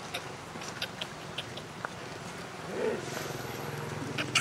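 A monkey's short call about three seconds in, among scattered light clicks and rustles, with a low steady hum coming in at about the same time and a sharp click near the end.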